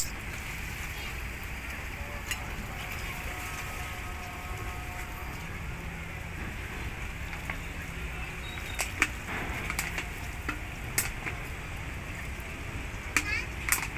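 Steady ferry-harbour ambience: a low rumble under an even hiss, with scattered sharp clicks and ticks from about nine seconds in.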